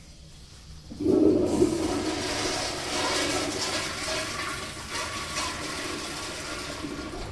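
Public restroom toilet flushing: a sudden rush of water about a second in, then a steady rushing flow that slowly eases off.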